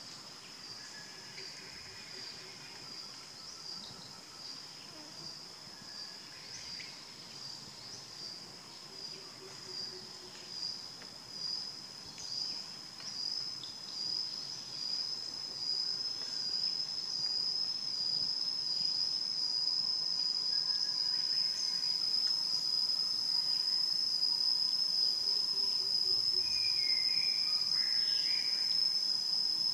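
Insect chorus in tropical trees: a continuous high-pitched buzzing drone that pulses about once a second at first, then swells and holds louder and steady from about halfway.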